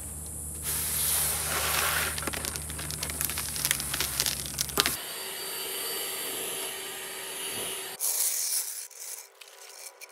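Tools scraping and rubbing at work on the car, with sharp clicks, over a steady low hum. The sound changes abruptly about five seconds in and again near eight seconds, and it is quieter after the second change.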